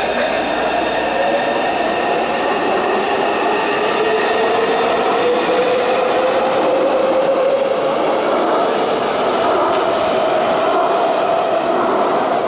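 Taipei Metro train pulling out of an underground station and running on into the tunnel. Its traction motors give a whine that rises slowly in pitch and then holds, over a steady rumble of the running train.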